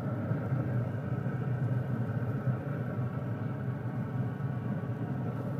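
Steady machine hum and rumble, like a fan motor, from the open pellet grill.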